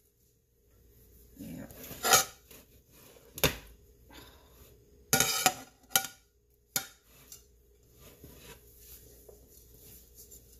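A metal springform pan and a ceramic plate knocking and clinking against each other and the glass-top stove while a hot quiche is flipped out of the pan onto the plate. There are several separate knocks, with a short cluster of clatter about halfway through.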